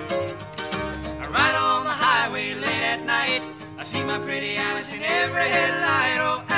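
Acoustic guitars strummed in a folk/country-style song, with a voice singing a melody over them.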